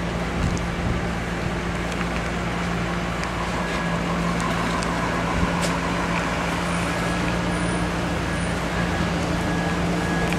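Steady mechanical drone with a constant low hum, and a few faint clicks.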